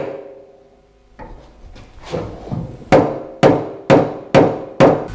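Wooden mallet striking a pin punch to knock out a drawer-pull rivet, each blow followed by a brief ring. The ring of one strike dies away first, a few light taps follow, and then five sharp blows come at about two a second.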